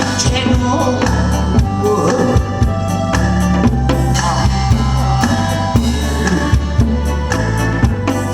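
Trot-style music with a steady drum-kit beat, a bass line and sustained melody notes, playing loudly.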